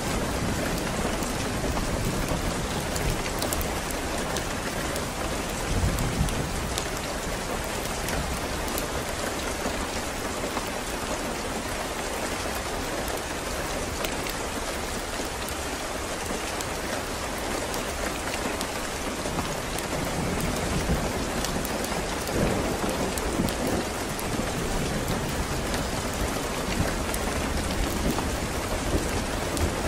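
Steady heavy rain with scattered sharp drop ticks, and low thunder rumbling at the start and again in the last third, fading through the middle.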